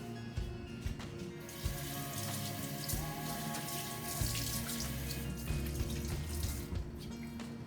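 Water running steadily for about five seconds, starting a little after the first second and stopping near the end, over background music.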